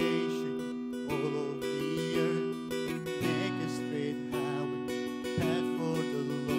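Acoustic guitar strummed in steady chords, about one stroke a second, changing chord about three seconds in, with a man's voice singing along over it in places.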